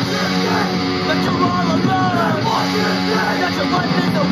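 A street punk 7-inch vinyl single playing on a Technics SL-J11 linear-tracking turntable: guitar-driven punk rock.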